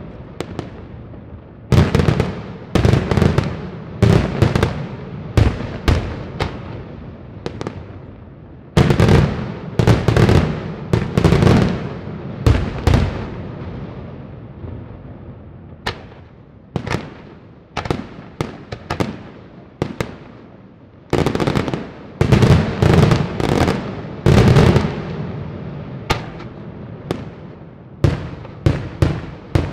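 Daytime fireworks display: volleys of aerial shells bursting in sharp, echoing bangs that come in dense clusters, thinning to scattered single bangs in the middle and ending in a quick string of separate cracks.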